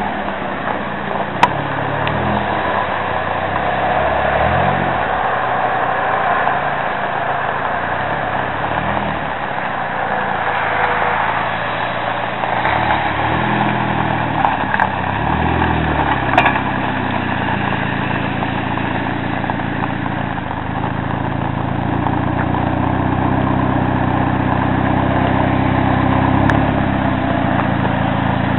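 Mitsubishi Starion GSR-VR's 2.6-litre turbocharged four-cylinder running, given a few short throttle blips in the first half and then idling steadily.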